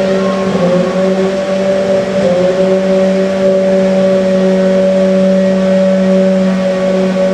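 An engine running at a steady speed, a loud constant drone that holds one pitch, stepping slightly in pitch about half a second and two seconds in.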